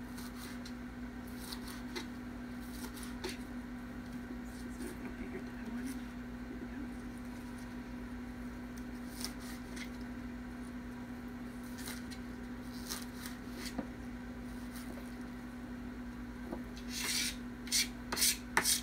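A kitchen knife slicing through green onion stalks on a cutting mat, soft short cuts scattered throughout, over a steady low hum. Near the end come a few louder sharp knocks.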